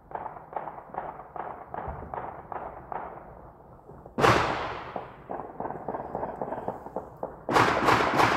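A string of firecrackers popping about three times a second, sounding muffled. About four seconds in comes one loud bang with a long fading echo. Near the end a louder, sharper string of firecracker pops starts up, about four or five a second.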